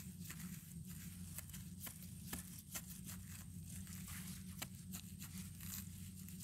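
Hand digging tool jabbing and scraping into dry soil and leaf litter around a wild yam tuber: faint, irregular crunches and scrapes, several a second. A steady low hum runs underneath.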